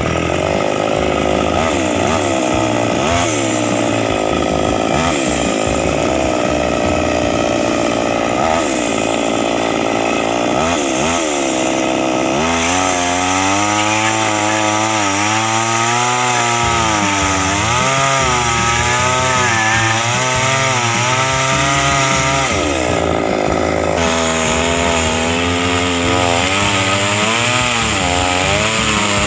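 Two-stroke chainsaw running, revving up and down repeatedly for the first dozen seconds. It then runs lower and under load, its pitch wavering as the chain cuts through the wood, with a brief rise near the end.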